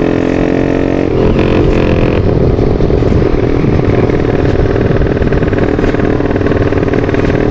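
A bored-up and stroked-up Yamaha Vixion's single-cylinder four-stroke engine running under way, heard from the rider's seat. Its pitch climbs slightly over the first second and the note shifts about two seconds in, then it runs steadily.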